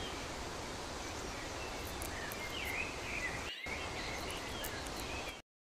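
Outdoor nature ambience: a steady hiss with small birds chirping, the chirps busiest about three seconds in. It drops out for a moment a little later and then cuts off suddenly just before the end.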